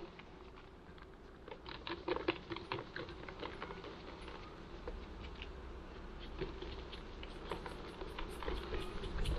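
Wooden hive frames being lifted out and handled, giving a run of light clicks and knocks that starts about a second and a half in, over the steady buzzing of honeybees at the opened hive.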